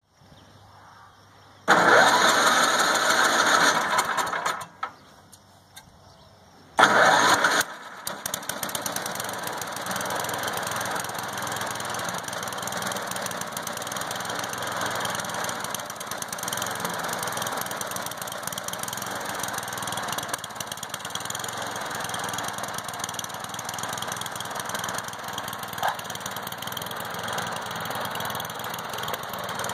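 Snapper 824 snowthrower's 8-horsepower engine being started with its plug-in electric starter: a first crank of about three seconds that does not catch, a pause, then a short second crank on which the engine fires. The engine then runs steadily.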